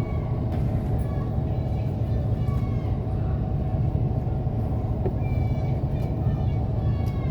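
Steady low rumble of a city express bus, engine and road noise heard from inside the passenger cabin.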